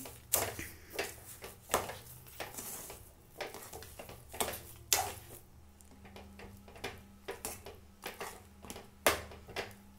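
A spoon stirring thick semolina kesari in a metal pan, scraping and knocking against the pan's sides and bottom in irregular clicks, about one or two a second. A low steady hum runs underneath.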